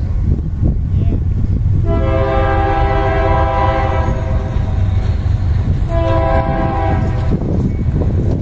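Locomotive air horn on an approaching train: one long blast of about three seconds starting about two seconds in, then a shorter blast of about a second and a half, heard over a steady low rumble.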